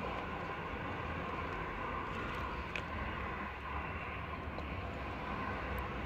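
Steady low mechanical hum and rumble, with a few faint clicks.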